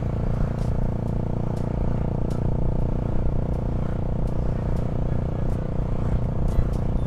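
Motorcycle engine running at a steady cruise, with wind rumble on the microphone.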